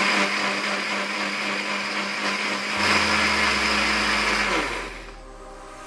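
Electric countertop blender running at full speed, grinding soybeans with water into soy milk; it stops about five seconds in.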